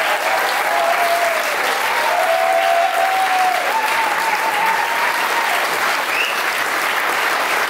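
Audience applauding steadily, with a few faint short held notes over the clapping.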